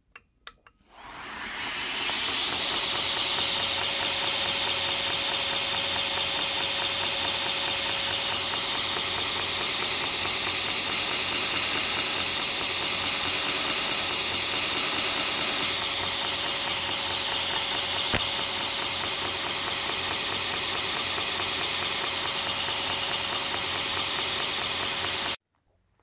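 Belt grinder switched on with a click and spinning up over about two seconds, then running steadily with its belt hissing as the steel tang of a pocket-knife blade is held against it to take material off the rest and stop areas. One sharp tick about two-thirds through; the sound cuts off abruptly near the end.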